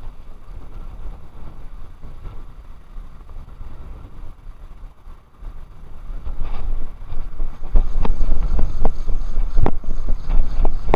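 Wind buffeting the microphone in gusts, much stronger from about eight seconds in, with a few sharp clicks over it.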